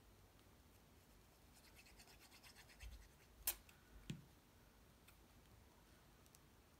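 Quiet handling of paper: light rustling and scratching of a cardstock cloud being glued. Then come two sharp taps about three and a half and four seconds in, as the small plastic bottle of liquid glue is set down on a self-healing cutting mat.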